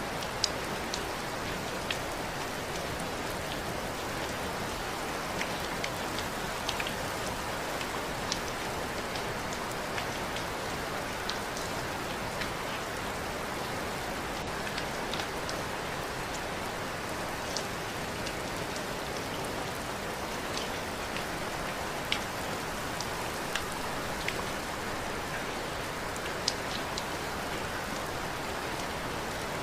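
Steady rain falling: an even hiss of rainfall with scattered sharper taps of individual drops landing close by.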